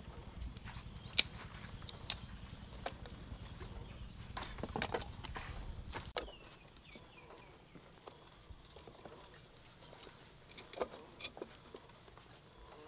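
Dry twigs and kindling clicking and snapping as they are handled and lit in a clay stove, with a low rumble under the first half. A few faint crackles follow from the small twig fire burning in the stove.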